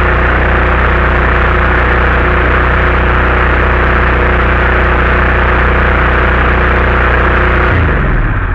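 Small gasoline engine on a pressure washer running at a steady speed, a test run to check vibration on the new mounting. About eight seconds in it is shut off and winds down, its pitch falling.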